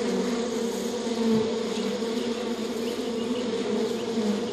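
A honeybee colony buzzing at its hive: a steady, unbroken hum.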